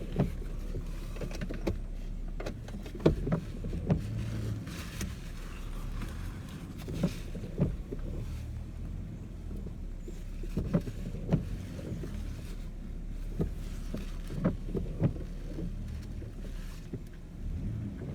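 Vehicle engine running at low speed as the vehicle is slowly reversed into a parking spot, with scattered sharp clicks and knocks over a steady low hum.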